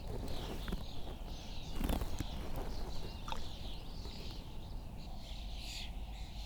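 Small songbirds chirping and singing, several calls overlapping, with a few short knocks around two seconds in.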